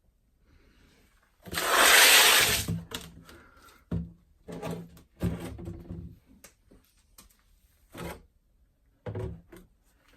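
Handling noise: a loud rubbing scrape about a second and a half in, then a string of separate knocks and thuds.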